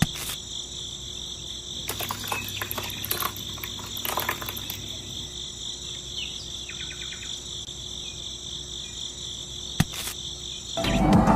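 Steady, high-pitched insect trill, like crickets, with a few scattered clicks; background music comes in near the end.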